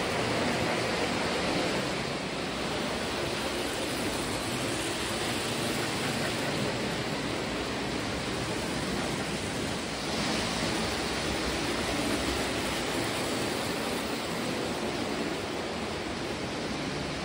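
Lionel O-gauge model trains running on metal three-rail track: a steady rushing rumble of metal wheels rolling on the rails, turning brighter and hissier about ten seconds in as another train passes close.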